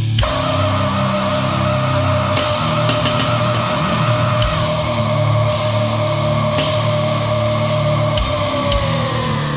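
Death crust metal playing loud: heavily distorted guitars and drums with cymbal crashes, under one long high held note that sags in pitch near the end.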